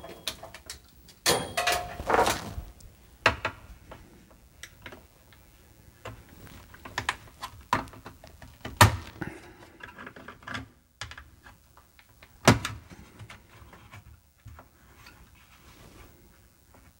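The thin sheet-metal RF shield cover of a Commodore 64 being pried and worked off the motherboard by hand: scattered clicks, scrapes and rattles of the metal, with a louder spell of rattling a second or so in and sharp clicks about nine and twelve seconds in.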